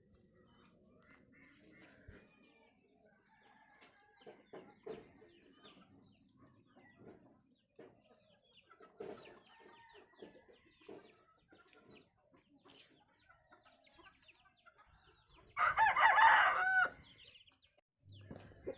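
Faint clucking and scattered bird chirps, then an Aseel rooster crows once, loud, for about a second and a half near the end, the call dropping in pitch as it finishes.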